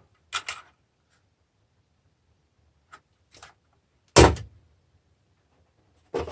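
Handling knocks on a workbench: a quick double knock, a couple of faint clicks, then one loud thump with a brief ring about four seconds in, as parts of a dismantled battery charger are moved and set down.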